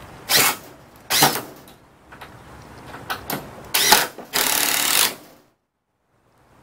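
Cordless drill running in several short bursts, drilling pilot holes into wooden framing. The last burst is the longest, and then the sound cuts off abruptly.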